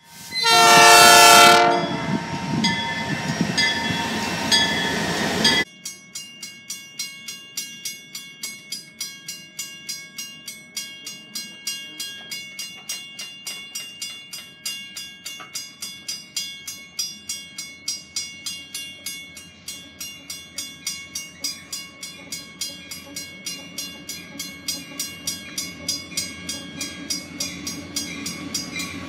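A locomotive horn sounds loudly for about a second and a half. After a sudden cut, a railroad grade-crossing bell rings steadily at about two strikes a second, and the low rumble of an approaching train grows near the end.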